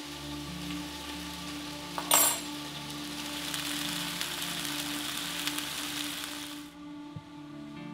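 Fish fillets sizzling as they fry in oil in a non-stick frying pan, with one brief louder burst about two seconds in. The sizzle cuts off abruptly shortly before the end.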